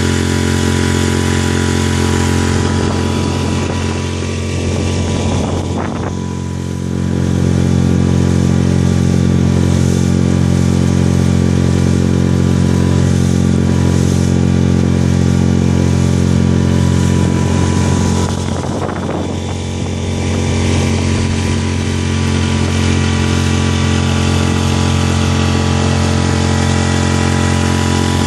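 Parsun F5 four-stroke 5 hp outboard motor running steadily under way, pushing an inflatable boat. The engine note eases off a little twice, about a third of the way in and again about two thirds of the way in.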